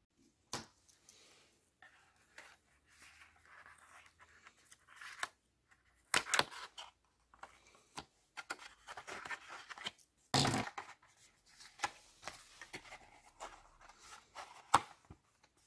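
Small cardboard retail box being handled and opened by hand: irregular rustling and scraping of cardboard as a sticker seal on the flap is peeled, with sharp clicks and taps. The loudest moments come about six and ten seconds in.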